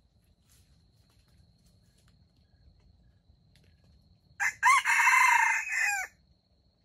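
Red junglefowl rooster crowing once: a short first note, then a long held call that drops in pitch as it cuts off.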